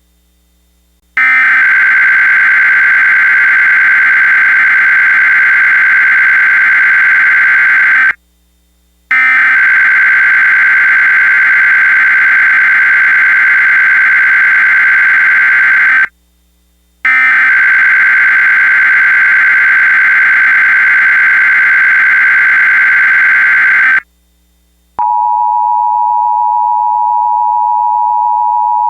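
Emergency Alert System tones: three SAME header data bursts, each a digital screech lasting about seven seconds with about a second of silence between them, then the steady two-tone EAS attention signal starting near the end.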